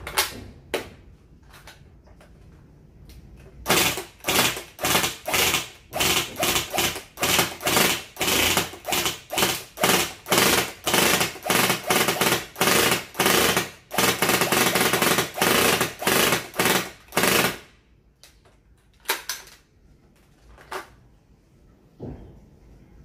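Tokyo Marui AUG A3 airsoft electric gun (AEG) firing: a few single shots, then shot after shot at two to three a second from about four seconds in, then a continuous burst of about three and a half seconds, then a few more single shots near the end.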